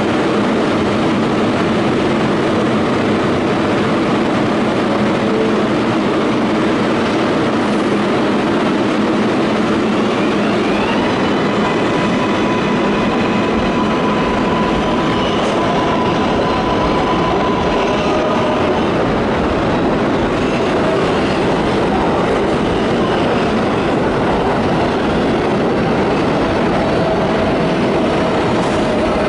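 New York City Subway 7 train of R188 cars running along an underground station platform: a loud, steady rumble of wheels and running gear. A faint rising motor whine comes in about ten seconds in, followed by a steady tone.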